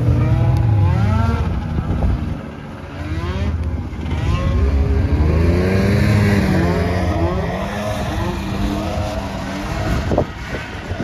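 Snowmobile engine revving, its pitch rising and falling several times as the throttle is worked, with a dip about two seconds in and a higher, steadier run in the middle.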